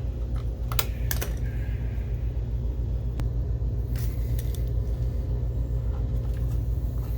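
A few light clicks and taps from small parts and a screwdriver being handled while screws are taken out of a projector's lamp basket, over a steady low hum.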